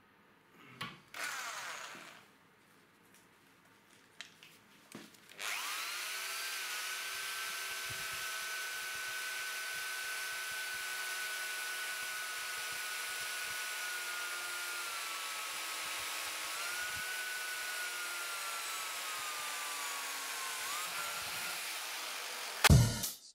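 Handheld electric drill boring a hole through a metal motor-mount plate. It starts about five seconds in and runs steadily with a whine that sags slightly in pitch twice, then stops near the end.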